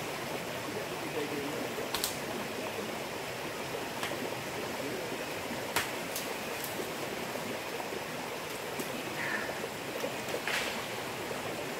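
Shallow forest stream running over rocks, a steady rush of water, with a few brief sharp clicks about two, six and ten seconds in.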